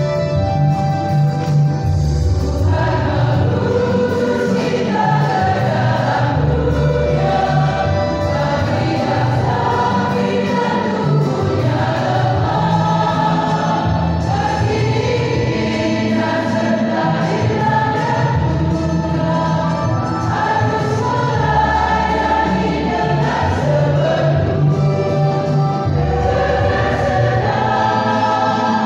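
A church choir singing in parts over instrumental accompaniment with a steady bass line; the voices come in about two and a half seconds in, after an instrumental lead-in.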